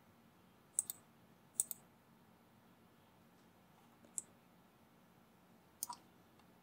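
Computer mouse buttons clicking, four clicks spread apart, most heard as a quick double tick.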